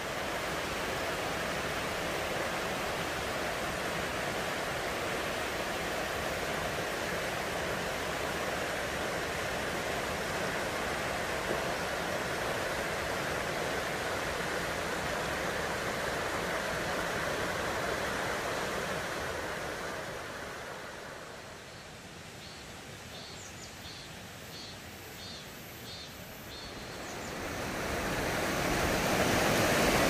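Shallow mountain stream rushing over rocks and riffles, a steady wash of water. It fades somewhat about two-thirds of the way through, then grows louder again near the end.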